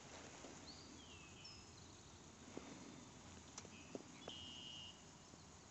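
Faint quiet river ambience with short, whistled bird calls, some sliding down in pitch, and a few small clicks or knocks near the middle.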